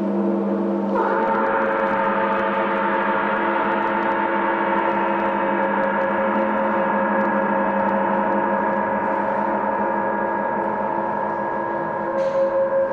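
Large hanging gong played with a mallet, swelling about a second in into a dense, sustained wash of many overlapping ringing tones. Near the end a strong lower tone comes in and the sound pulses with a regular beat.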